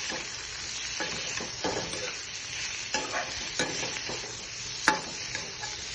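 Boiled potatoes and bamboo shoots with spices sizzling in hot oil in a pan while they are stirred, a utensil scraping across the pan every second or so, the sharpest scrape about five seconds in.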